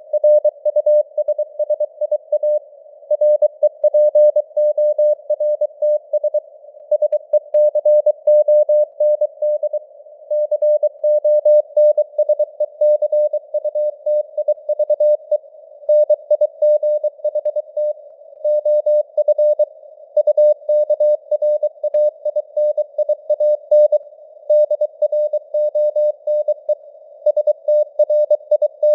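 Morse code (CW) sent at 23 words per minute: a single steady beep-tone keyed on and off in dots and dashes, over a narrow band of simulated radio static that fills the gaps between characters.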